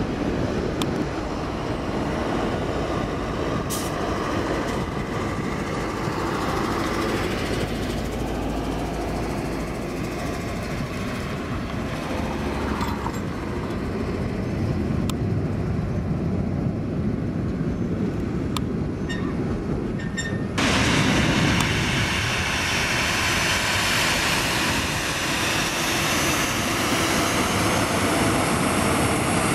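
Jet engine noise of an Airbus A320-200 climbing out after takeoff, a steady broad rumble that eases off as it draws away. About twenty seconds in, it cuts to a louder, hissier engine sound from a Boeing 737-800 and its CFM56-7B turbofans, taxiing on the runway at close range.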